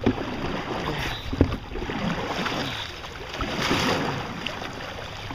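Canoe under way on a river: paddles working the water and water splashing against the hull, with two sharp knocks, one at the start and another about a second and a half later.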